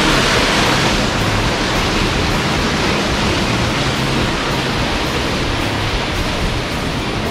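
Steady rushing of a fast mountain stream flowing over rocks in a canyon.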